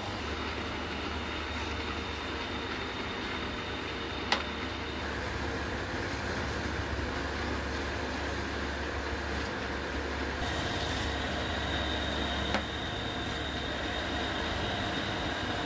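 Electric motor running steadily with a low hum, spinning a wooden bead on a spindle chuck while the bead is polished by hand with a strip of abrasive. Two sharp clicks sound, about four seconds in and again near twelve and a half seconds.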